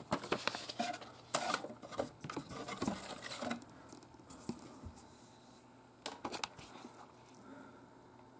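Clear plastic bags of model-kit parts crinkling and rustling as they are handled, with light knocks from a cardboard box. Busy for the first three and a half seconds, then a shorter burst about six seconds in.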